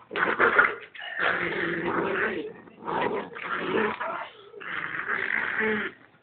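Dogs growling during a rough play-fight, in four bouts of about a second each with short breaks between.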